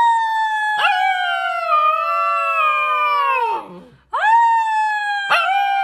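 A husky-type puppy howls: two long howls of about three seconds each. Each starts with a quick upward swoop, holds a high pitch with a brief catch in the voice, then slides down as it fades.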